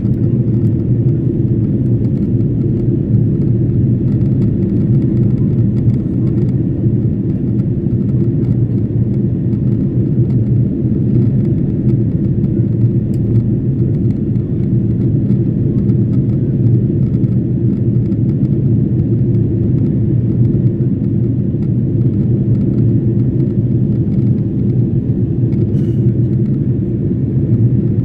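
Airliner cabin noise during the descent: the steady low rumble of the jet engines and airflow, heard from a window seat over the wing.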